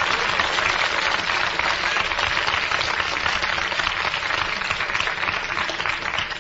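Studio audience applauding, a steady dense clapping that begins to thin out near the end.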